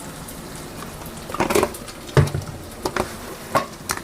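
Onion masala sizzling and crackling as it fries in a pan while spice powders are added. A spoon knocks against the pan about six times, irregularly, in the second half.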